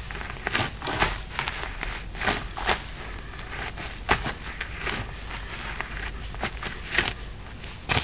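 Football boots (Adidas Copa Mundial) stamping and treading on weeds in garden soil: irregular crunches, rustles and scrapes of crushed plants and dirt underfoot, the sharpest about a second in, about four seconds in and about seven seconds in.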